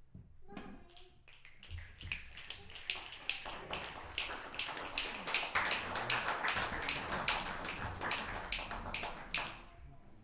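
A small audience applauding, with individual claps standing out. The clapping builds from about a second and a half in, carries on steadily, and stops about half a second before the end.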